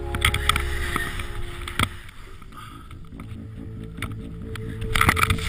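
Helmet-camera audio of a skier riding deep powder: wind rushing over the microphone and skis running through the snow, with bursts of scraping noise as he turns, the loudest near the start, just before two seconds in, and about five seconds in.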